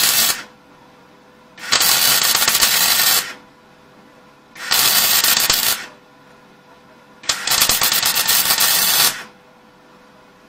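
Semi-automatic (MIG) welder arc crackling and spattering, feeding 1 mm copper-coated SV08G2S steel wire, in short stitch welds. One weld ends just after the start, then three more follow, each lasting one to two seconds. A faint steady hum sounds between them.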